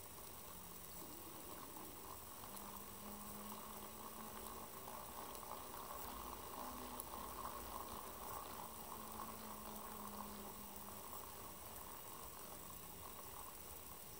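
A NEMA17 stepper motor driving a 3D-printed 50:1 compound planetary gearbox: a faint whirr from the plastic gears, with a low motor hum that jumps between a few pitches as the speed changes. It grows a little louder in the middle.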